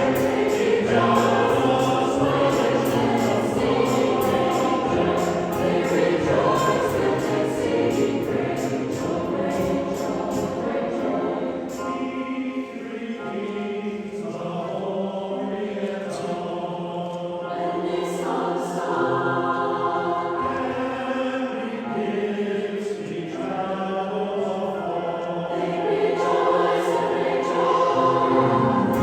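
A choir singing in harmony, with many voices holding long notes, softer for a few seconds partway through.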